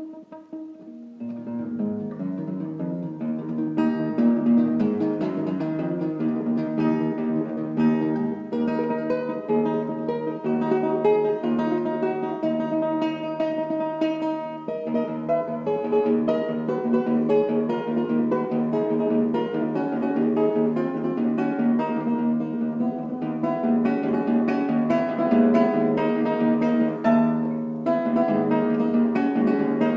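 Instrumental music led by plucked guitar, playing a melody over held low notes. It opens softly and fills out about a second in.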